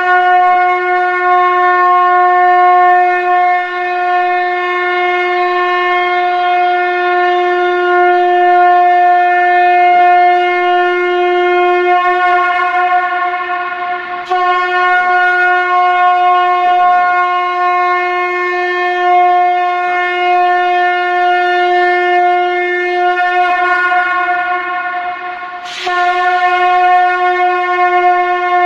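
Shankha (conch shell trumpet) blown in long, loud, sustained blasts on one steady pitch with many overtones. The tone dips and is sounded afresh about halfway through and again near the end.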